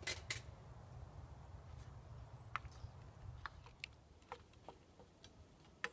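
Light clinks and taps of a wooden spoon on a steel canteen cup and a cast iron Dutch oven as chili is spooned out. The sharpest clinks come right at the start, followed by scattered softer taps.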